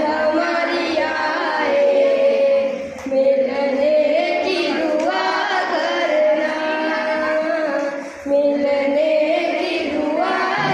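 Boys singing a song together into a corded microphone, amplified in a hall, in long melodic phrases with held notes and short breaths about three and eight seconds in.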